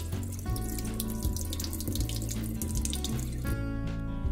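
Water splashing out of a tilted steel bowl into a sink as soaked flattened rice (poha) is drained, the splashing thinning out about three and a half seconds in. Light background music plays underneath.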